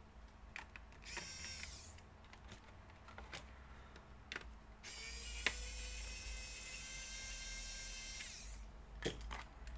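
Small electric screwdriver running in two spells, a short one about a second in and a longer one of about four seconds from about halfway, undoing the screws of a laptop's bottom cover. Light clicks of the screwdriver and screws being handled come between.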